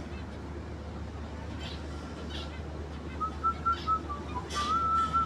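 Lovebirds giving a few short, sharp chirps. From about three seconds in, a thin whistle holds one pitch with small wavers, over a steady low hum.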